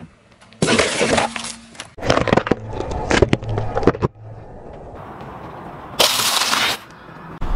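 A car tyre rolling over and crushing a run of objects, a cardboard gift box, carrots and wafer ice-cream cones. It is heard as separate loud bouts of crunching, cracking and snapping, each starting and stopping sharply, with a quieter stretch in the middle.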